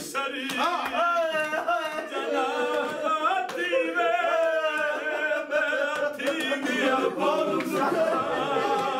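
A man singing unaccompanied, a Muharram mourning lament, in one continuous line of long, wavering held notes that bend up and down in pitch.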